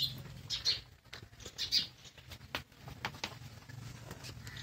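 Calf suckling at a cow's udder: wet sucking and smacking sounds, with a few short high chirps over them.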